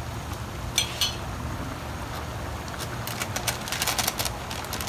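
Chicken caldereta simmering in an aluminium pan, its thick tomato sauce bubbling and popping at the boil. There are a couple of sharp clicks about a second in, then a denser run of small pops and crackles from about three seconds in.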